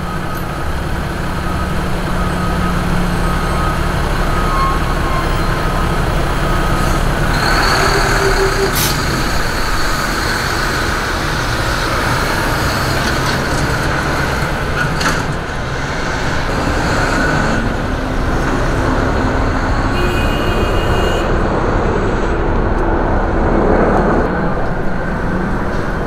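Steady rumble of heavy vehicle engines with traffic noise, broken by a couple of short knocks.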